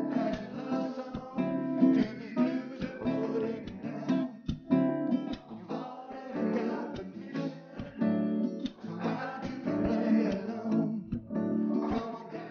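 Background music led by acoustic guitar, plucked and strummed in a steady run of notes.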